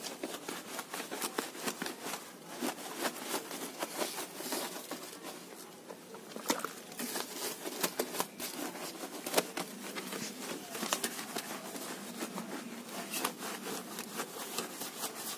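A paint brush scrubbing shampoo lather over a motorcycle's engine casing and frame: a run of quick, irregular scrubbing strokes.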